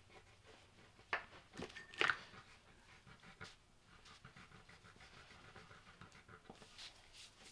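Wax crayon scribbling on paper on a tabletop: faint, irregular scratchy strokes, the loudest about two seconds in.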